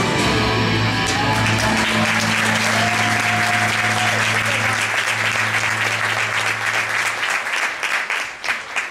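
Audience applauding over the dance music's long held final chord, which fades out about seven and a half seconds in, leaving only the clapping.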